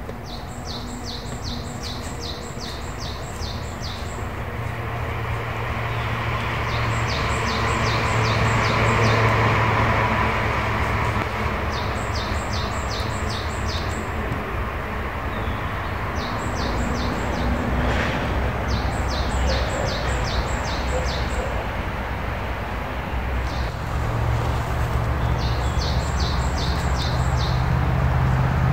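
A small songbird repeating a high, quick phrase of about eight even notes, each phrase about two seconds long, every few seconds, over a low steady rumble and rustle.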